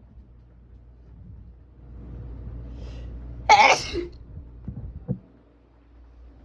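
A single loud human sneeze about three and a half seconds in, with the breath building for about a second and a half before it, and a few short, quieter sounds just after.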